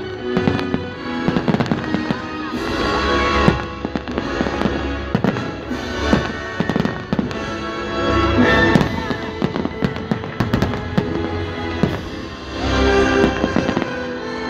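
A fireworks display bursting in a rapid, irregular run of bangs and crackles over loud music with sustained tones.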